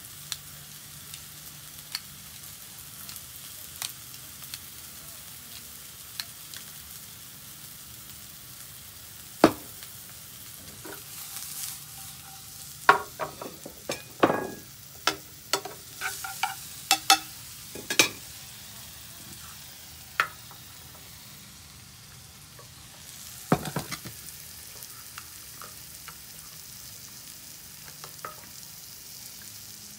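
Sliced mushrooms sizzling steadily in a frying pan as they are stirred and tossed, with sharp clinks and knocks of the utensil and pan, thickest about halfway through.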